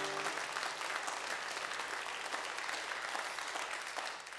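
Audience applauding in a church hall after a song, with the tail of the band's final chord dying out just at the start.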